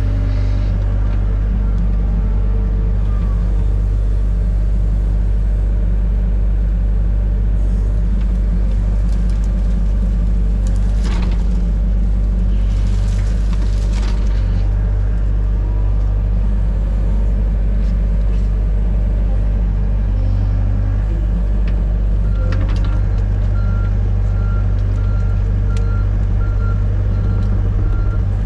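Excavator's diesel engine running steadily, with a burst of cracking and scraping about halfway through. Near the end a repeating beep, like a travel or reversing alarm, starts up.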